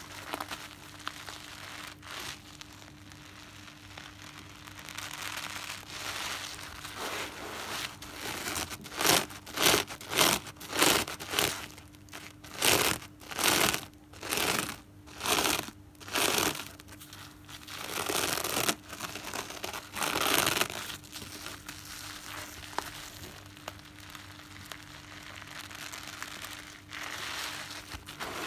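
A soapy natural car sponge squeezed and kneaded by hand: a soft, wet crackle of foam, then from about a third of the way in a run of about ten loud squelching squeezes, roughly one and a half a second, followed by two longer squishes.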